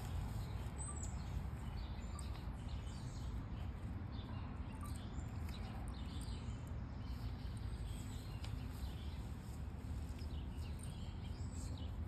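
Scattered faint, high bird chirps over a steady low rumble.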